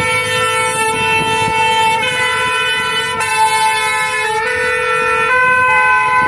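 French two-tone fire-engine siren ("pin-pon") on vintage fire trucks, switching between its two notes about once a second, over the engines of the trucks as they drive past.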